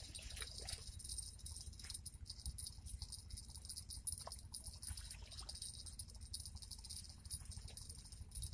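Insects chirring steadily in a high, finely pulsing buzz, with a low rumble underneath and a few faint clicks.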